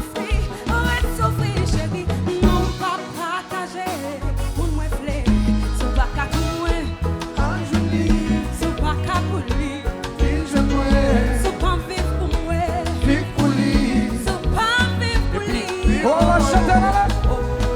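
Live band music with a steady beat, heavy bass and singing.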